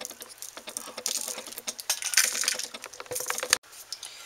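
Dry spice mix being sprinkled over salmon fillets on baking paper: rapid fine clicking and crackly rustling that comes in several short bursts.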